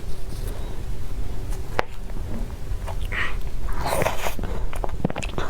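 Close-up mouth sounds of a person eating: bites and chewing with scattered small clicks, and a louder wet burst about four seconds in.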